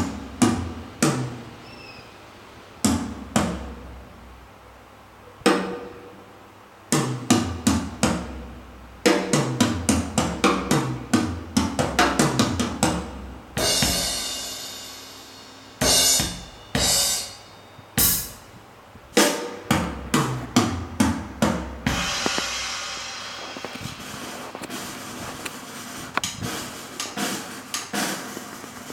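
Drum kit test recording played back through Polk Audio RTI A3 bookshelf loudspeakers: single hits a second or two apart at first, then quick tom and snare fills, with cymbals washing out about halfway through and again near the end.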